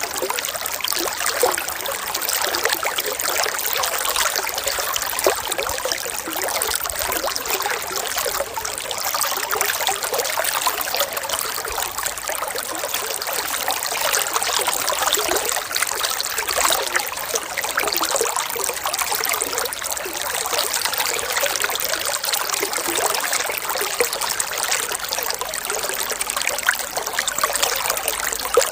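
Running water trickling and babbling steadily, as from a small stream, with no change in flow.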